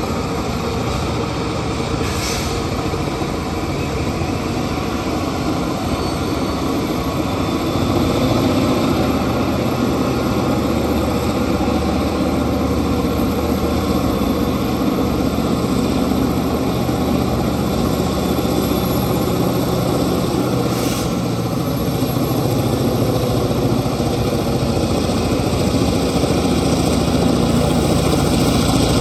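Diesel switcher locomotive's engine running steadily as it moves toward the camera, growing a little louder about eight seconds in and again near the end.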